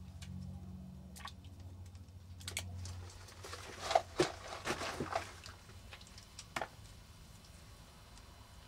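Hands squeezing and crumbling lumps of dry clay in a metal tray of watery clay slip, giving a cluster of small splashes and crackles about four to five seconds in and one more a little later. A low steady hum sounds under the first three seconds.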